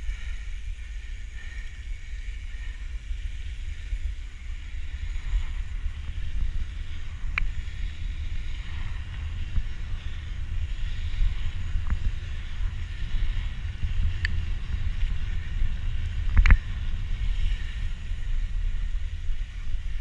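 Rattle of a handlebar-mounted camera and wind on the microphone as a mountain bike rolls fast down a tarmac road: a steady low rumble with a few sharp knocks, the loudest about sixteen seconds in.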